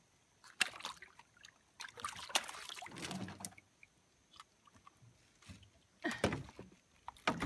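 Water splashing and dripping as a hooked piranha is lifted from the river in a fish gripper, with a few sharp knocks against the side of a small boat.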